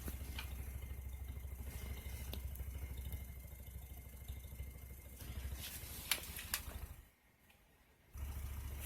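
Pair of Orion XTR3 12-inch subwoofers in a bandpass box playing a steady deep bass tone with the cones flexing hard. The bass cuts out for about a second near the end, then comes back. It plays clean, with no major voice-coil rub.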